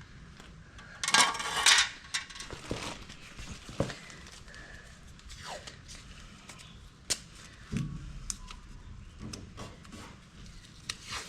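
Metal clinks, clicks and scrapes of a part and hand tools being handled while fitting a panel piece to the car's front, with a short loud rattle about a second in and a sharp click near the middle.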